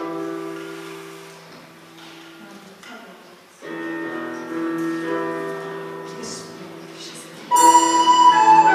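Yamaha electronic keyboard playing slow, held chords as an introduction, a new chord coming in about midway. Near the end the music turns much louder with a bright high melody line.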